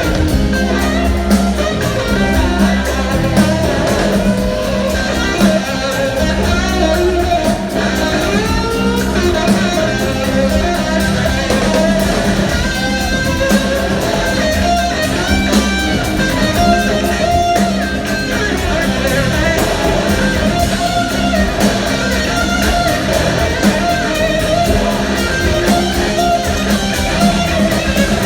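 Blues-rock band playing live, an instrumental stretch with electric guitar to the fore over bass and drums.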